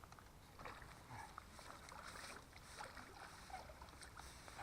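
Faint, intermittent water splashing with a few small clicks, close to silence.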